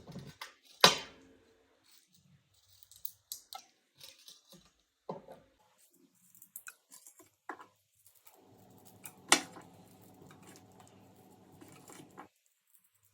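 A kitchen knife cutting garlic cloves into rough pieces: scattered small crunching cuts and clicks, with a sharper knock about a second in and another about nine seconds in.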